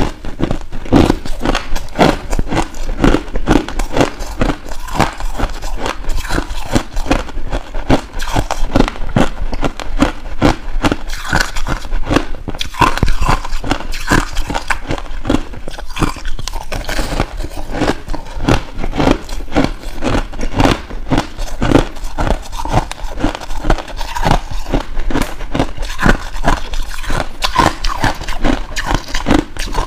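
Finely crushed ice, pressed into a clump, being bitten and chewed close to a clip-on microphone: a dense, continuous run of hard crunches, several a second.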